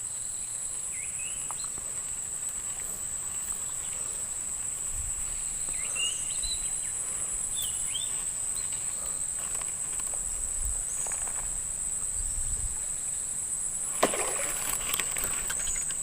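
Steady high-pitched insect drone, with a few short chirps here and there and a sharp click near the end.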